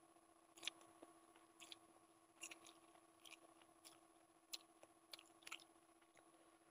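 Quiet, close-up mouth sounds of a person eating Maggi instant noodles: chewing, with short wet smacks and clicks every half second or so, over a faint steady hum.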